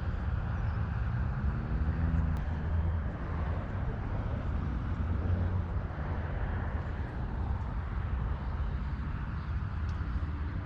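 Steady low outdoor rumble with a hiss over it, and a short pitched sound about a second in.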